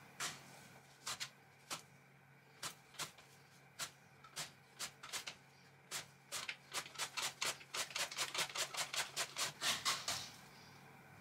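A vegetable pushed by hand over the blade of a stainless-steel mandoline slicer in short slicing strokes. The strokes are spaced out at first, quicken to about three or four a second past the middle, and stop about ten seconds in.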